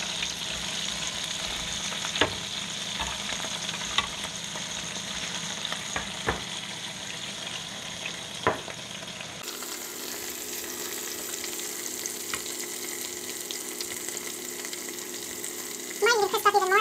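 Chicken pieces sizzling on the hot grill plate of a Ninja Foodi Smart XL Grill, a steady frying hiss with a few sharp ticks about every two seconds in the first half.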